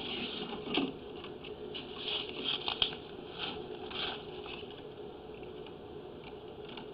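Faint, irregular pattering and crackling over a steady low hum.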